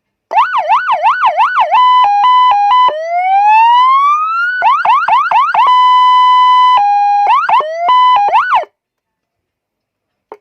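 200-watt electronic police-escort siren sounding loudly through its Federal Signal speaker and stepping through its patterns: a fast yelp, a high-low two-tone, a slow rising wail, the yelp again, steady tones and the two-tone again. It cuts off suddenly about three-quarters of the way in, followed by a faint click near the end.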